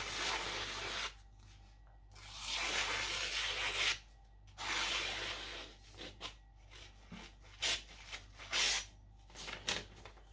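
Freshly sharpened nakiri blade slicing through paper in three long, hissing strokes of about a second each, followed by several small ticks and taps.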